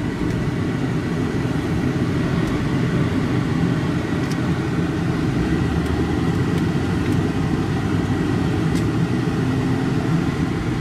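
Steady low hum inside the cabin of a running 1993 Lincoln Town Car, its 4.6-litre V8 and air conditioning going, with a few faint ticks.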